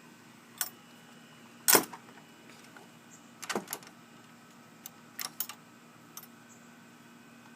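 Metal gate latch clicking and rattling in a handful of separate clacks, the loudest about two seconds in.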